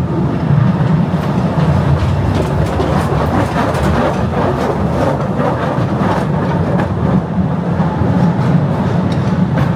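Postojna Cave's narrow-gauge tourist train running along its track, heard from aboard: a steady low rumble of wheels on rail with scattered clicks and rattles.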